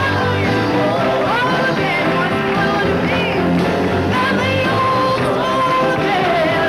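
A woman singing a melody with vibrato, backed by a live rock-and-roll band with bass and electric guitar.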